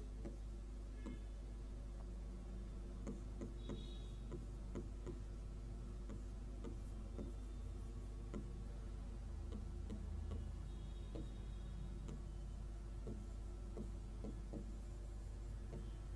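Light irregular taps and clicks of a stylus pen on an interactive display screen as equations are written, over a steady low hum.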